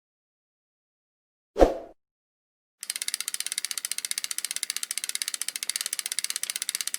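Fishing reel clicking rapidly and evenly as its ratchet turns, starting about three seconds in, after a single short thump.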